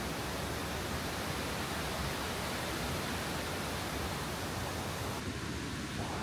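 Tortum Waterfall's falling water rushing close to the microphone, a steady even wash of noise. The highest hiss drops away about five seconds in.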